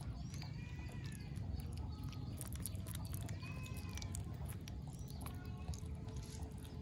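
Baby otter chewing raw catfish: a run of small wet clicks and smacks as it bites and works the flesh.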